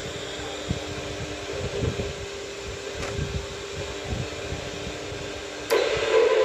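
A small electric motor running with a steady hum and hiss, with a few held tones. Near the end it abruptly gets much louder.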